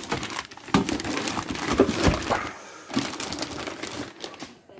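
Plastic bag wrapping around new stainless exhaust pipes crinkling and rustling as the pipes are handled in their cardboard box, in irregular rustles that thin out near the end.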